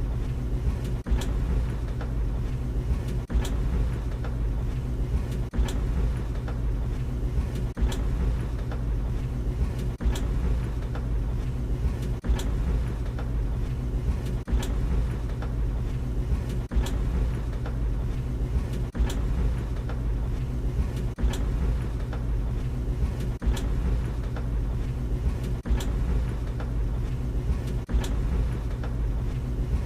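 Tumble dryer running with a steady low hum from its motor and turning drum. A sharp knock comes about every two seconds, once per drum turn, with lighter ticks in between.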